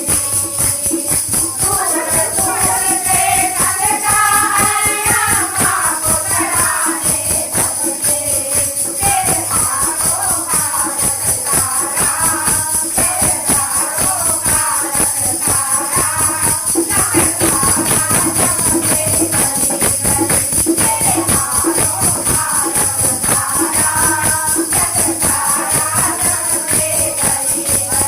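Hindu devotional bhajan sung by a kirtan group: a singing voice over a fast, steady beat of drum and jingling hand percussion.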